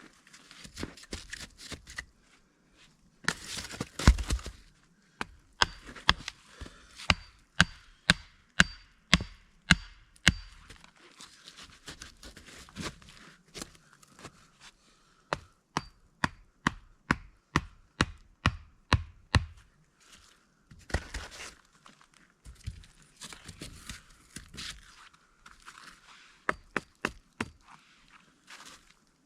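Wood being chopped with repeated sharp blows, about two a second, in two runs of a few seconds each with scattered single knocks and rustling between them.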